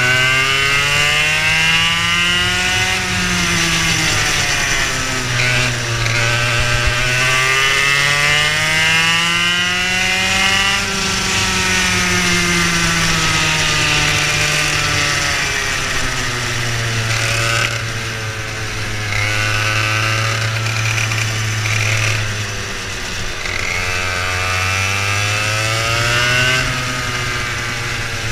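Racing kart engine heard from on board, its pitch climbing steadily over several seconds as it accelerates and then falling away as it slows, over and over through the lap.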